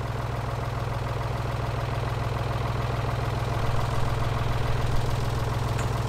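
Ford tractor engine idling steadily.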